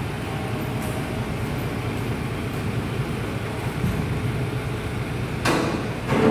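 Steady low vehicle-like rumble, with a loud sudden clatter about five and a half seconds in and another right at the end.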